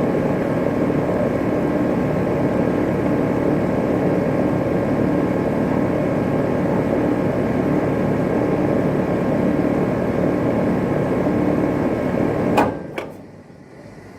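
2018 Rheem Classic 2.5-ton central air conditioner condenser running steadily, its Copeland scroll compressor and fan humming. Near the end it shuts off with two sharp clacks and the running sound drops away abruptly.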